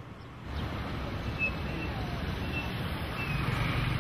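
Street traffic: a steady wash of passing vehicles sets in about half a second in, with an engine's low hum coming up near the end.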